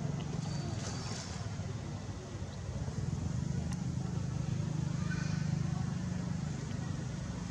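A motor running steadily with a low hum, a little louder from about three seconds in.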